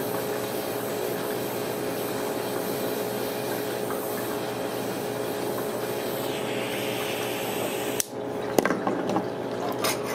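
Steady hiss of a small handheld gas torch flame heating the end of a copper tube to anneal it. The hiss breaks off abruptly about eight seconds in, followed by a few light clicks.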